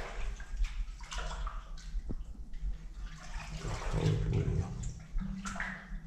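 Shallow standing water on a flooded bunker floor splashing and sloshing irregularly as someone wades through it.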